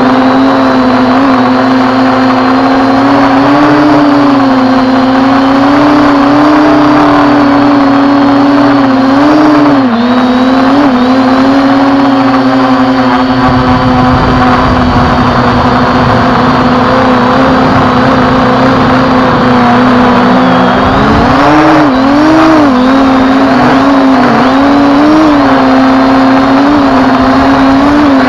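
Quadcopter drone's motors and propellers running steadily in flight. The pitch wobbles up and down as the motors adjust, most around two-thirds of the way through. A low rumble, likely wind on the microphone, comes in from about halfway and fades around three-quarters of the way.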